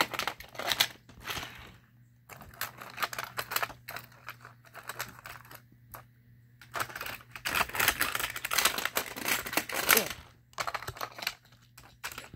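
Hard plastic toy pieces handled on a plastic playset: a busy string of clicks, taps and rattles, with short pauses about two and six seconds in, as a plastic cover is fitted over a toy car.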